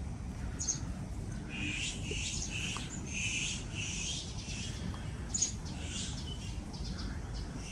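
Birds chirping and calling in the trees: scattered short calls, with a quick run of about half a dozen in the middle, over a steady low background rumble.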